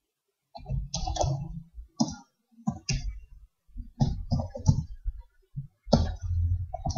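Typing on a computer keyboard: several short bursts of key clicks with pauses between them.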